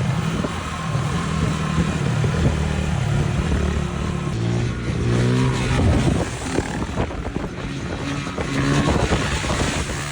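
Vehicle engines running at road speed over a steady rush of wind and tyre noise, the engine note climbing about halfway through and dropping again later.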